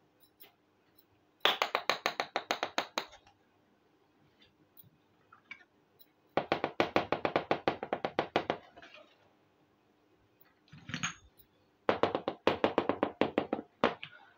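Miniature clay toy pots being tapped rapidly by hand: three runs of sharp, even taps, about nine a second and two seconds each, with a single small clink between the second and third runs.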